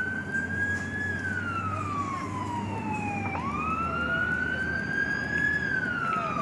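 Fire engine siren wailing: the tone slides slowly down, sweeps quickly back up a little past three seconds in, holds high, and slides down again near the end.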